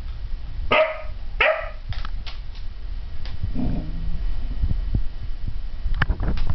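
A dog barks twice in quick succession about a second in, then gives a lower, softer vocal sound around the middle. A few short clicks come near the end.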